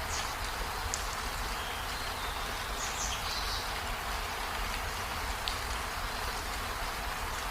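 Steady rain falling, a dense even hiss, with a few faint, brief high-pitched sounds about three seconds in and again past five seconds.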